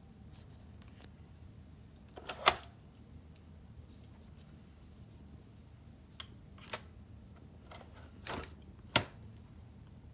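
A few separate sharp clicks and knocks, a couple of seconds apart, from hands working the coffee machine and its parts, over a faint steady low hum.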